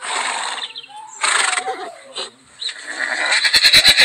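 Horse whinnying and snorting: the recorded call of an augmented-reality 3D horse. Short noisy calls come first, then a longer whinny with a fast quaver near the end.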